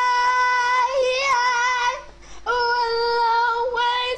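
A high voice singing long held notes with a slight waver, breaking off briefly about two seconds in before taking up the note again.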